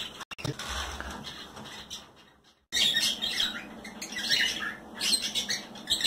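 Small pet birds chirping in a busy, ongoing chatter, which drops out for a moment a little over two seconds in and then resumes.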